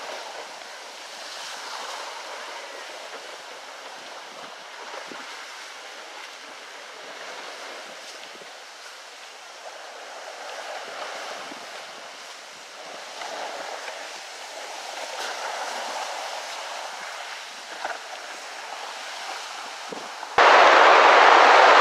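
River drift ice: ice floes and slush drifting and rubbing together, a soft steady hissing rustle with a few faint clicks. Near the end a much louder steady rushing sound cuts in abruptly.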